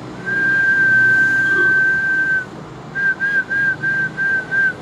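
A person whistling one high note, held steady for about two seconds, then six short whistles at the same pitch in quick, even succession.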